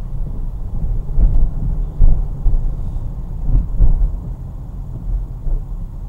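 Low, steady rumble of a car driving, road and tyre noise, with a few louder knocks as it runs over bumps, about one, two and four seconds in.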